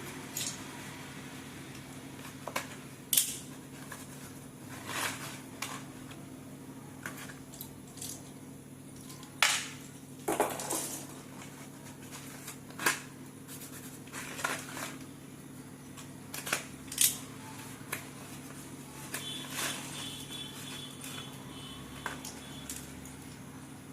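Slate pencils, thin sticks of soft stone, handled and knocked together in irregular sharp clicks and clatters, over a steady low electrical hum.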